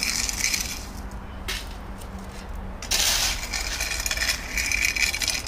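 Coarse gravel crunching and clattering in rough bursts: a short one at the start, a brief one about a second and a half in, and a longer one through the second half.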